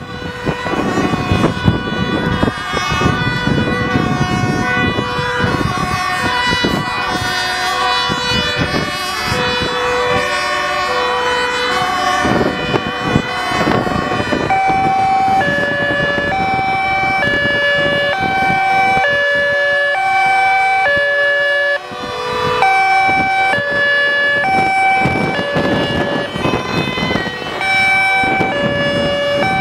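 Several emergency-vehicle two-tone sirens sounding at once, each alternating between a high and a low note at its own pitch and pace. They play over the rumble of the moving vehicle the sound is heard from.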